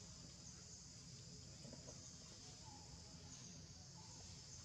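Faint, steady insect chorus, a high even hum, over a low rumble.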